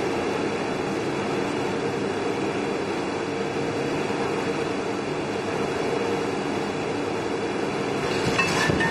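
Steady din of factory production-line machinery running, a dense mechanical rumble with a faint hum, with a few clattering knocks near the end.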